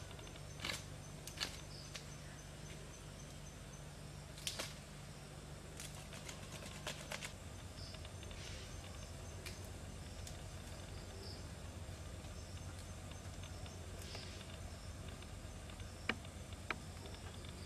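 Intermittent rustling and crackling of green banana-plant strips being handled and woven by hand, with a few short sharp snaps, two of them near the end. Underneath is a steady low hum and faint high chirps.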